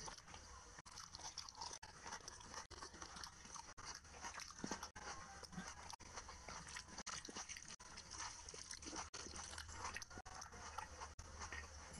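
Close-miked eating: chewing of rice and curry with wet mouth noises, and fingers mixing rice and curry on a plate.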